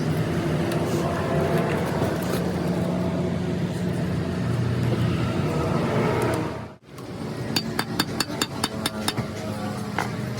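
A steady mechanical drone in a car repair workshop. After an abrupt break about two-thirds of the way in, a hammer beats rapidly on metal, about five sharp strikes a second.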